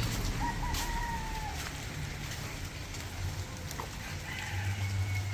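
A rooster crowing once, about half a second in, a call of about a second that falls slightly in pitch.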